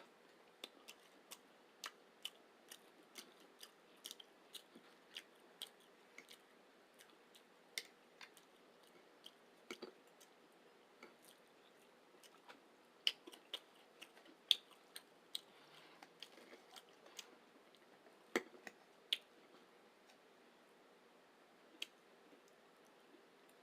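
Close-miked chewing of breakfast food: a run of short, sharp wet smacks and mouth clicks, a couple a second, thinning out near the end.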